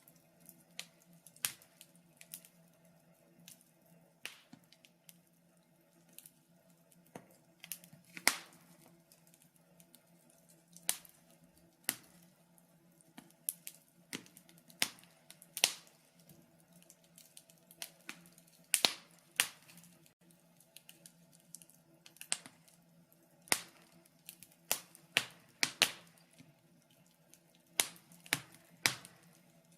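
Wood campfire crackling, with sharp irregular pops and snaps a few times a second over a faint steady low hum.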